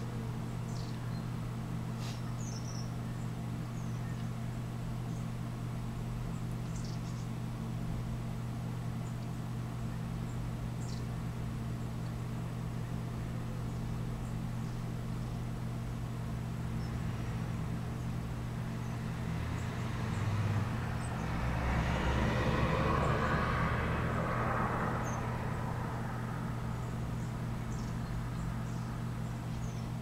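Small birds give short, thin, high call notes, scattered singly and in little runs, over a steady low hum. A passing vehicle swells up just after the middle and fades away a few seconds later.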